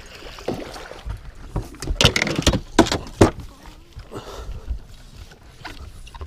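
A muskellunge slashing and thrashing at the surface right beside the boat after striking a bucktail on a figure-8: a run of sharp splashes, the loudest about two to three seconds in, then quieter water sloshing.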